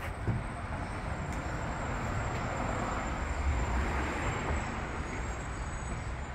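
Road traffic noise from passing vehicles, a steady hiss that swells as one goes by around the middle and then eases, over a low rumble.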